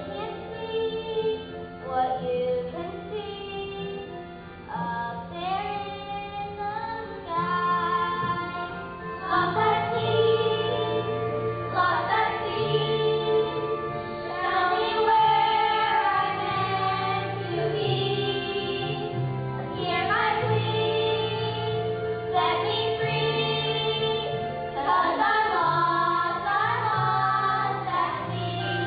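Children singing a song together into microphones, over an instrumental accompaniment with sustained bass notes.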